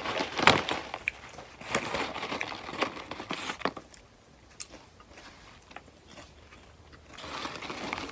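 Paper microwave popcorn bag crinkling and popcorn rustling as a hand rummages inside, busy for the first three or four seconds. Then quieter crunching of popcorn being eaten, with another brief rustle of the bag near the end.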